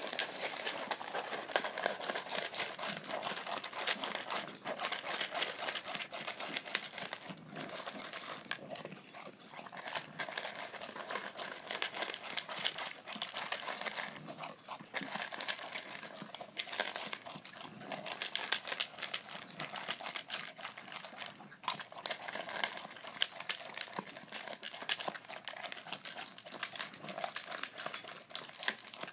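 A dog eating dry kibble fast from a plastic bowl: rapid crunching with pellets clattering against the bowl, nearly nonstop with a few brief pauses.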